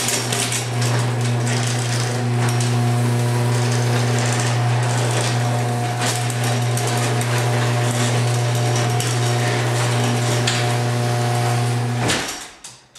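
Sears Craftsman 1/2 HP chain-drive garage door opener running and moving an old wooden garage door: a loud, steady motor hum with a clattering rattle over it, cutting off about twelve seconds in as the door reaches the end of its travel.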